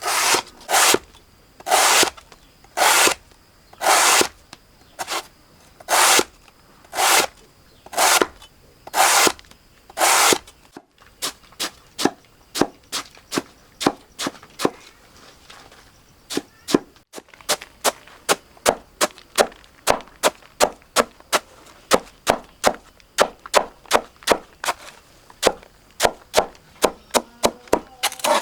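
Blade chopping purple taro plants on wood, for livestock feed. The first ten seconds hold slower, fuller strokes about once a second; after that come quicker, sharp chops, two or three a second.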